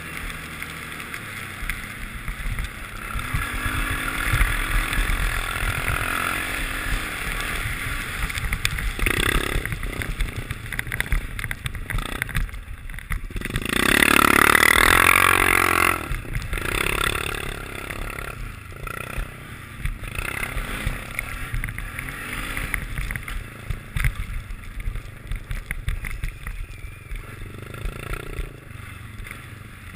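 ATV engines running and revving, the pitch rising and falling a few times early on, with a rumbling, knocking ride noise throughout. About halfway through comes a louder rush of noise lasting a couple of seconds.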